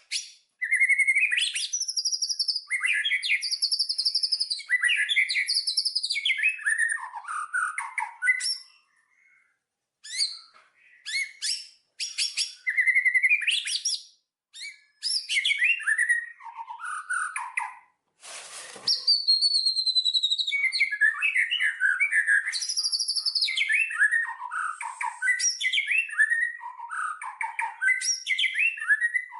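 Songbirds chirping and singing in quick, varied, high-pitched phrases and trills, with a brief lull about a third of the way in. A short burst of noise comes just past the middle.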